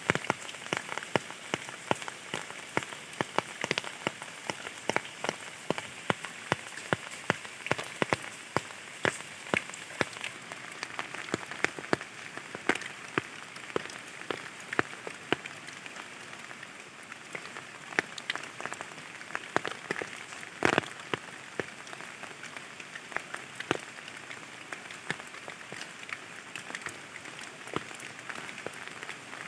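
Steady rain falling, with many individual drops striking close by at irregular moments.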